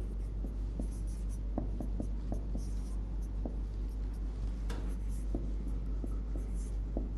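Marker pen scratching and ticking on a whiteboard in many short strokes as Arabic script is written, over a steady low hum.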